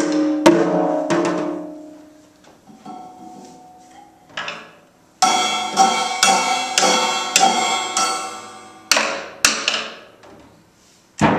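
A toddler hitting a small drum set with drumsticks at an uneven pace: a few drum hits with a ringing tone, then a run of about seven cymbal strikes at about two a second that ring on, then a few more scattered hits.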